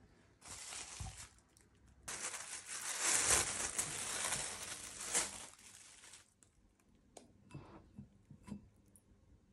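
Thin plastic bag rustling and crinkling as it is handled and pulled off: a short spell, then a longer, louder one from about two seconds in to six. A few soft knocks follow near the end.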